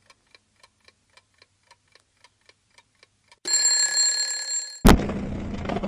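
Clock ticking about four times a second, then an alarm-clock bell ringing loudly for about a second and a half and cut off by a sharp click. A steady rumble of a motorcycle riding on the road, engine and wind, follows near the end.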